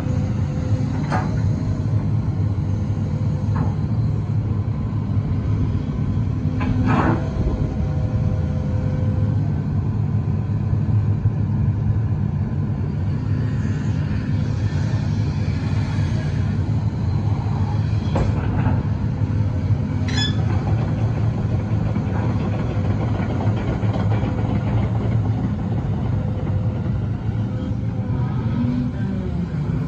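Case CX350B excavator's diesel engine running steadily as the machine swings and travels, with a few sharp clanks spread through the sound.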